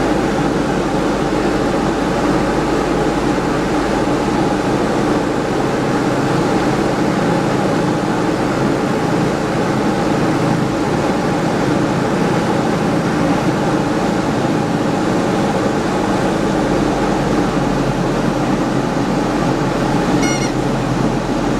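Diamond DA20-C1's Continental IO-240 four-cylinder engine and propeller running steadily, heard from inside the cockpit as a constant drone. A brief high tone sounds near the end.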